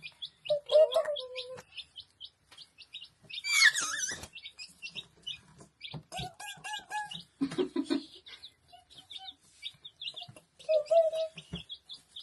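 Baby chicks peeping constantly in short, high, rapid chirps, with a few louder, lower calls breaking in now and then.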